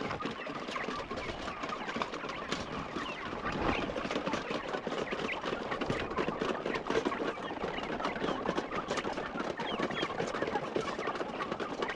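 A flock of chickens clucking and cheeping all at once: a steady, dense chatter of many birds.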